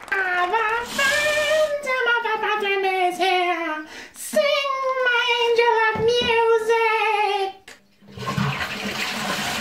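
A high voice singing long, wavering notes in a few phrases, each sliding down in pitch, then a rush of noise about eight seconds in.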